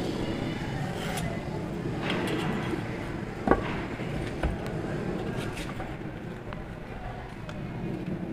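Steady outdoor background noise with a single sharp knock about three and a half seconds in and a lighter knock a second later, as the lightweight concrete block and the marking tools are handled.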